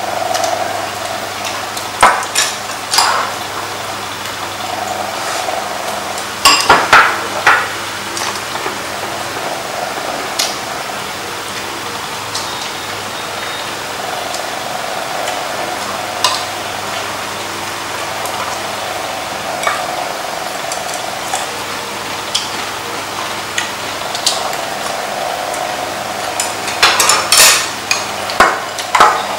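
Chopsticks and spoons clinking against bowls and a metal serving pan during a meal, in scattered clusters of sharp clicks, the loudest about seven seconds in and near the end, over a steady background hum.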